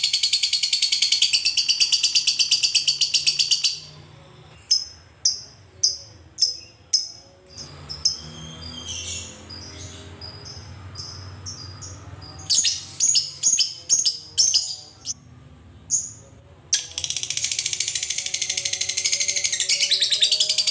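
Fischer's lovebird giving its long 'ngekek' chatter: a rapid, high-pitched trill for about four seconds, then a run of separate sharp chirps (ngetik), some in quick clusters. A second long trill starts about three-quarters of the way through.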